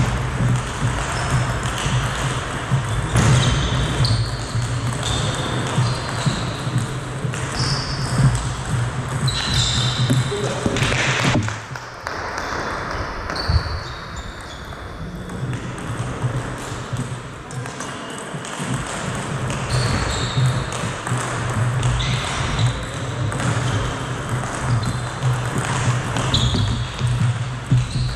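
Table tennis rallies: a plastic ball clicking off the bats and bouncing on the table in quick sharp knocks, over a steady low hum. A quieter pause between points falls in the middle, and play resumes with a serve near the end.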